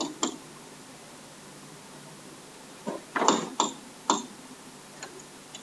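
Stylus pen tapping and clicking on a tablet screen while writing by hand: a single click just after the start, then three sharp clicks close together a little past the middle, and a couple of faint ones near the end, over a low hiss.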